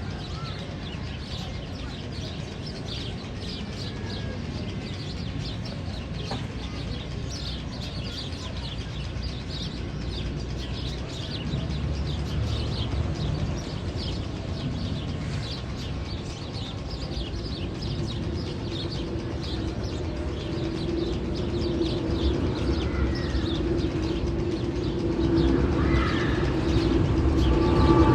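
Recorded sound effect of clucking fowl and chirping birds played over the tunnel speakers of the Magnum XL-200 roller coaster. In the last third a steady low hum builds and grows louder: a coaster train approaching on the track.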